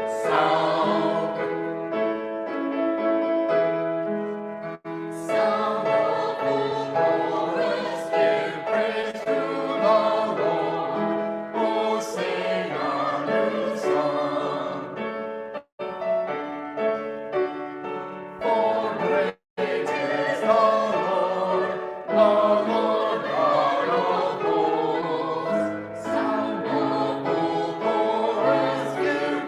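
A full choir singing sustained, many-voiced chords. The recording cuts out for an instant a few times, twice in the middle.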